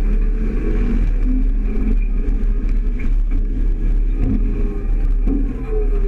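Farm machinery running in the field: a steady engine drone over a heavy low rumble, heard from a tractor-drawn grain cart with a combine close by.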